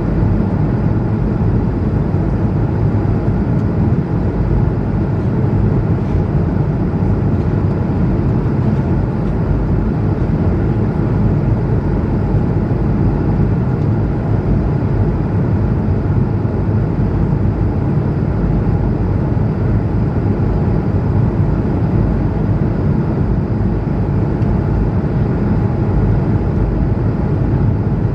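Airbus A220-100 cabin noise in flight: a steady rumble from the Pratt & Whitney geared turbofan engines and the airflow, heaviest in the low end, with a few faint steady tones and no changes.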